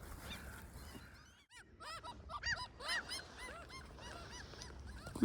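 A faint chorus of birds calling: many short, arching, pitched calls overlapping, starting up about a second and a half in.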